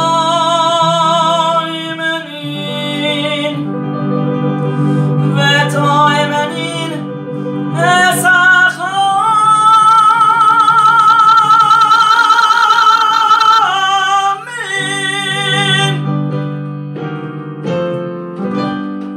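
A male cantor sings long, ornamented phrases of Jewish cantorial chant (chazzanut), holding notes with a wide vibrato. He accompanies himself with sustained chords on a piano. Near the end the voice drops away and the piano carries on alone with a few chords.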